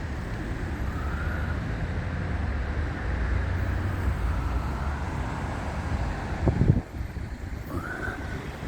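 Steady low outdoor rumble of road traffic and wind buffeting the microphone, with a brief loud knock about six and a half seconds in.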